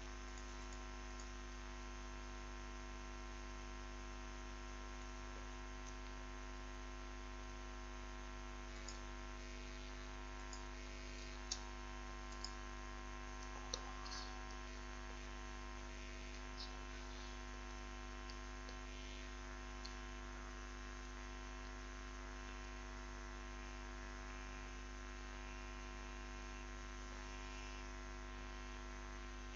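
Faint steady mains hum with a buzz of many fixed tones, and a few faint clicks about twelve to fourteen seconds in.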